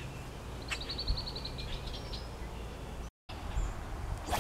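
Wild birds singing: a short trill of rapid, evenly repeated high notes about a second in, with a few other faint chirps over low outdoor background hiss. The sound drops out completely for an instant about three seconds in.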